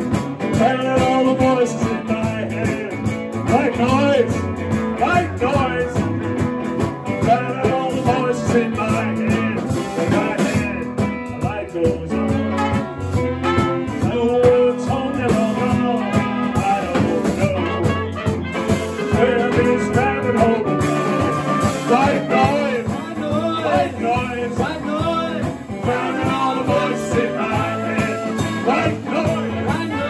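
A live band playing a song: electric guitar, keyboard, drums, bass, trumpet and saxophone, with sung vocals.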